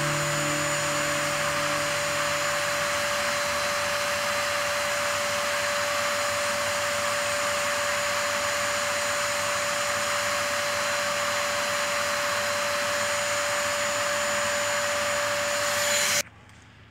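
Electric air blower feeding a coal forge, running steadily as a rushing whoosh with a constant whine, then cutting off suddenly near the end.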